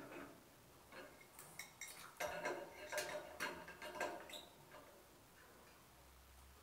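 Light metal clinks and knocks of an adjustable wrench and a chrome shower mixer's fittings as the mixer is tightened onto its wall connectors, a string of them between about one and four and a half seconds in.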